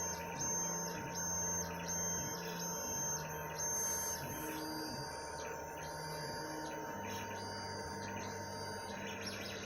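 3D printer running a print: its stepper motors whine in short steady tones that change pitch with each move, about every half second, settling into a steadier tone about seven seconds in.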